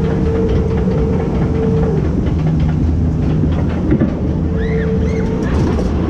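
Log flume boat being carried up the lift by its drive machinery: a steady mechanical clatter and rattle over a constant droning hum.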